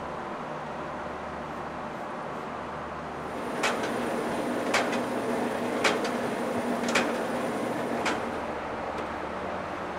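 Steady running noise of workshop machinery, with five sharp knocks evenly spaced about a second apart in the second half.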